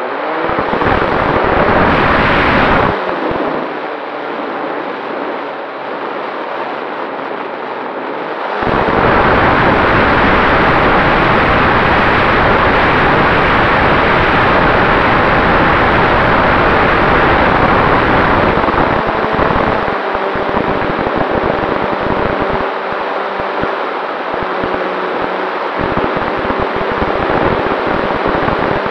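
Radio-controlled model Cessna 188 in flight heard from an onboard camera: the motor and propeller drone under a heavy rush of wind on the microphone. The rush swells about nine seconds in and eases a little after about nineteen seconds.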